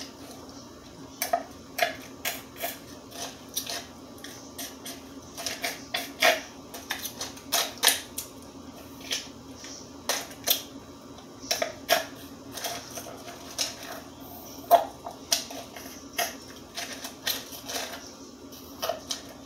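A person gulping down a thick blended protein shake from a cup: irregular wet clicks and swallows, a few each second, over a steady low hum.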